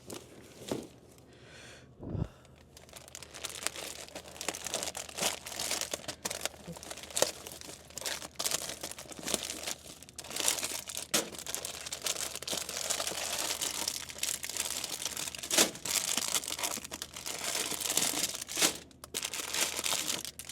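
Plastic snack packaging crinkling and being torn open as snacks are unpacked and handled, with a couple of knocks in the first few seconds before the crinkling becomes dense and continuous.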